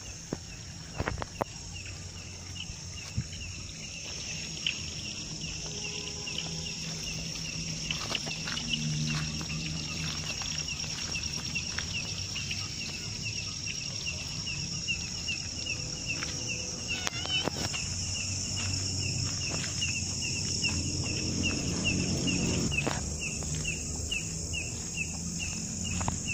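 Night insects, crickets among them, chirping: a steady high trill with a repeating chirp about twice a second, over a low background rumble.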